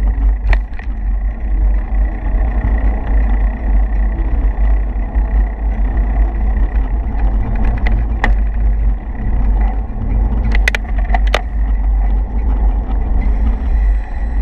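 Steady wind buffeting and road rumble on the microphone of a camera riding along a paved road, with a few sharp rattling clicks about eight seconds in and twice around eleven seconds.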